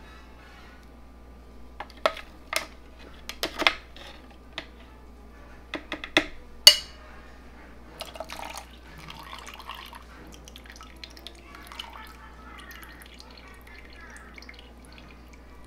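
A metal slotted spoon clinking and scraping against a ceramic bowl and the plastic food-processor bowl, a series of sharp knocks with the loudest about six and a half seconds in. From about eight seconds in, buttermilk trickles and drips as it is poured from the bowl into the food processor.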